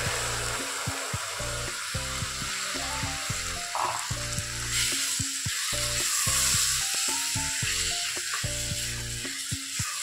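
Soaked rice and moong dal sizzling in hot ghee and oil in a pressure cooker while being stirred with a spatula, with background music playing.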